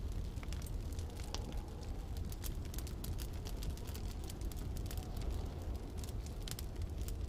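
Wood fire crackling, with frequent short sharp pops, over a steady low rumble of storm wind.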